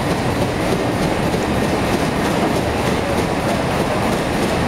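Steady mechanical running noise from a sugar-mill filter press and the belt conveyor beneath it during sludge-cake discharge, with faint repeated ticks over the running.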